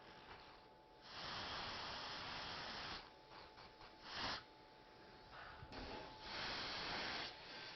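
A person breathing close to the microphone: short, sharp breaths in alternating with longer breaths out, a few seconds apart.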